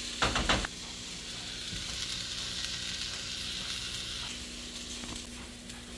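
Washed white rice sizzling as it toasts in hot avocado oil in a skillet, a steady frying hiss. It opens with a brief burst of scraping from stirring the rice.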